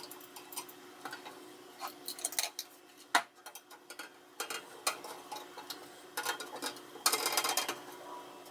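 Phillips screwdriver working small screws out of a NAS chassis: scattered light clicks and ticks, one sharp click about three seconds in, and a brief run of rattling clicks near the end.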